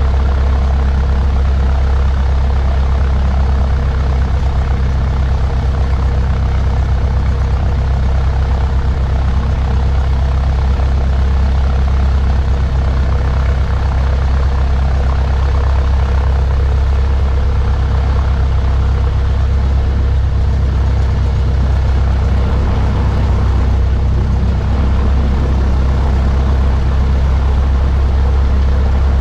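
Cessna 152's four-cylinder air-cooled piston engine and propeller idling steadily, a loud low drone heard inside the cabin.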